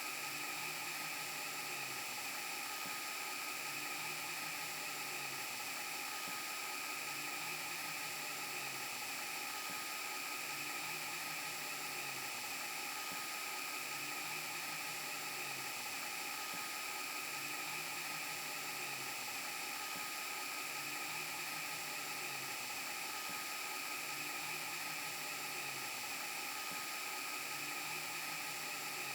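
VHS rewind glitch and broken-TV sound effect: steady static hiss with high whining tones held throughout, under a low hum that sags in pitch and repeats about every two and a half seconds.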